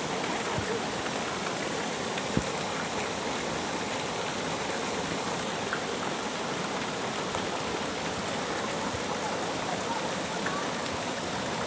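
Waterfall: falling water rushing steadily, with one brief knock a couple of seconds in.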